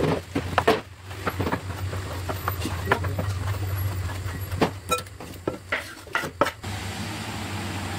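Kitchen knife chopping roasted eggplant on a wooden cutting board in quick, irregular knocks. After about four and a half seconds the board is tipped against a glass bowl and the pieces are scraped in, with a few louder knocks. A low steady hum runs underneath.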